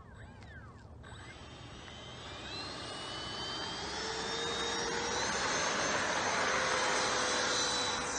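Electric ducted fan of a Freewing F-86 Sabre RC jet spooling up for takeoff. Its whine rises in pitch from about a second in, settles into a steady high whine, and grows louder as the model accelerates down the runway.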